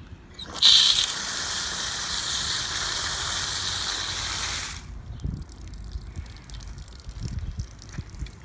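Water running hard from an outdoor tap, turned on with a brief louder gush. It runs steadily for about four seconds, then stops abruptly.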